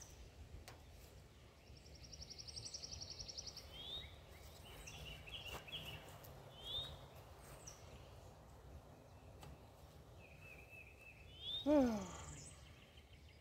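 Wild birds chirping and singing, with a rapid high trill about two seconds in and short repeated chirps after it, over a steady low outdoor rumble. Near the end there is a short falling vocal sound, the loudest thing heard.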